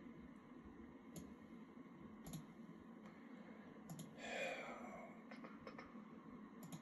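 Computer mouse clicking a few times, spaced a second or more apart, with a brief breathy exhale about four seconds in.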